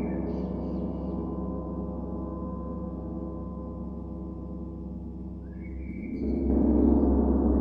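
Large gong ringing with a dense shimmer of overtones after being struck, slowly fading; about six seconds in it swells louder again with a deep low hum.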